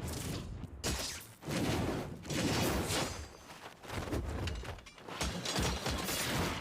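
Anime episode soundtrack: a run of loud, noisy whooshing and crashing sound effects in several surges, with faint music under them.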